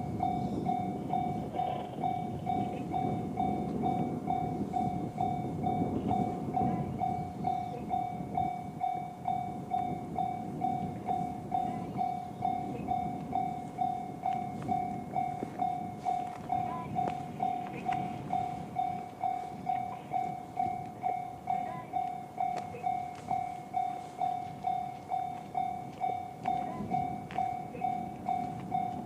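Japanese railway level-crossing alarm sounding the JR standard electronic bell: an evenly repeating ding that keeps going while the crossing is closed. Underneath runs the rumble of a passing train, strongest in the first few seconds and swelling again near the end.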